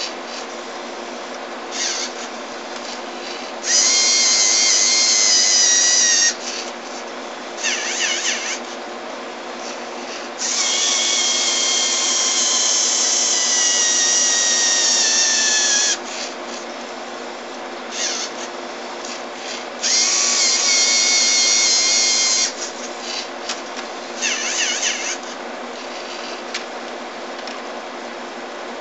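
LEGO Mindstorms motors and gear trains whining as the robot's arm moves CDs: three long runs of a few seconds each, the middle one slowly falling in pitch, with short bursts between them. A steady hum runs underneath.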